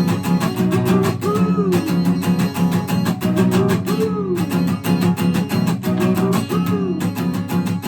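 Instrumental guitar music: fast, steady strummed guitar under a lead line whose notes swoop up and down in pitch again and again, with no singing.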